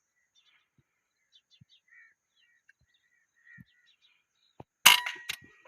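Faint bird chirps, then about five seconds in an air rifle fires with a single sharp crack, followed by a few quick clicks and a brief thin ringing tone.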